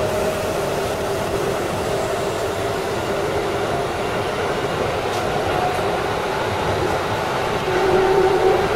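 Keikyu electric train running as it gathers speed, with a steady rumble of the running gear and a thin traction-motor whine that climbs slowly in pitch. Two faint clicks come about five seconds in.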